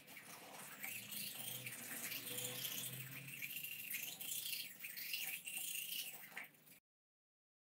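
Manual toothbrush scrubbing teeth: an uneven, scratchy bristle scrubbing that cuts off suddenly near the end.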